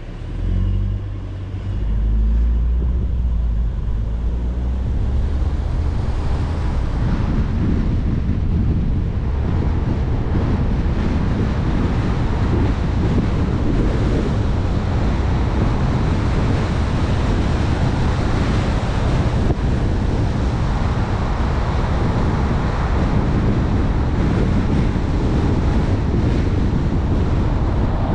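A car pulling away and driving on: a low road rumble comes up within the first two seconds, then tyre and wind noise grows brighter from about six seconds in and holds steady.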